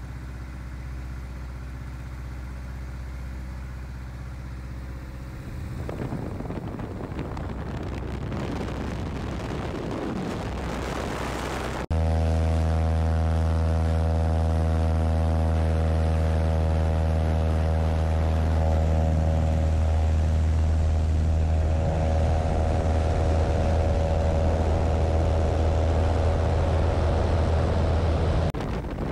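Light aircraft engine and propeller. A steady drone turns noisier with a rising rush of air over the first dozen seconds. About twelve seconds in it switches abruptly to the louder, steady full-power note of the Kitfox's engine on its takeoff run and climb.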